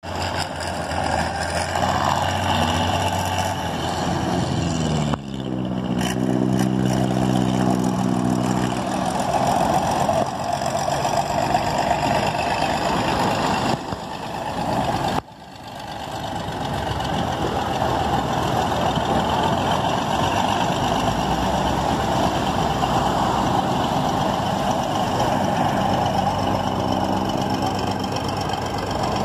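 A heavy engine running steadily, with the rush of breaking surf. The engine's tone stands out most clearly a few seconds in and again near the end.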